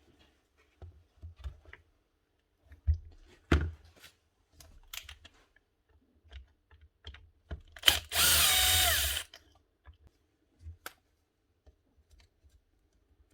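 Light clicks and knocks of small parts being handled, then about eight seconds in a small power tool runs in one loud burst of about a second, its pitch falling.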